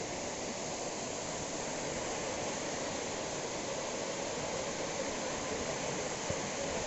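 Steady rush of a tiered waterfall spilling over rock ledges into a pool.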